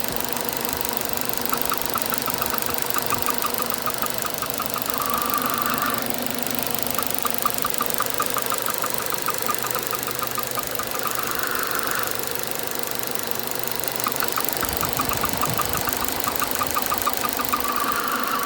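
An unidentified mechanism making a strange repeating noise: a run of rapid ticking for a few seconds, then a short whistle, the cycle coming round about every six seconds over a steady low hum.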